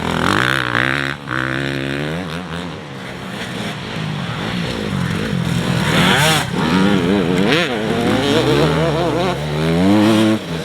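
Motocross dirt bikes running on the track, their engines revving up and falling back again and again as the riders accelerate and ease off.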